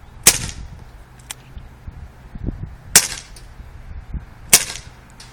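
Dan Wesson 4.5mm (.177) CO2 BB revolver firing three sharp shots, a few seconds apart, each followed by a short ring-out. Fainter sharp ticks come about a second after the first shot and again near the end.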